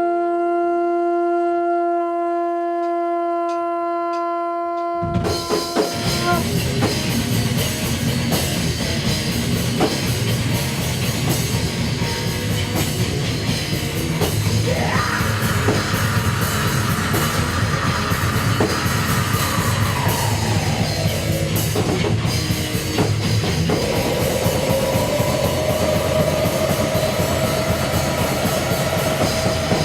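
Music: a single held wind-instrument note, then about five seconds in a heavy metal band comes in with drums and guitars. Midway a long note slides slowly down in pitch, and near the end another long note is held.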